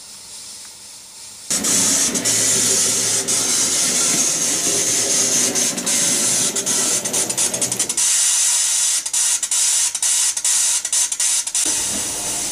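Steam-locomotive sound effect from an analog HO-scale model railway sound wagon, running off the track current: a faint hiss, then loud steam hissing from about a second and a half in. In its second half the hiss breaks up into quick stutters, and it drops lower near the end.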